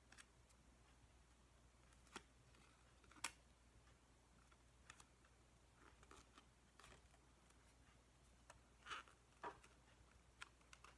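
Near silence broken by scattered faint clicks and crinkles of duct tape and stiff milk-jug plastic being handled and pressed together, with a sharper click about three seconds in.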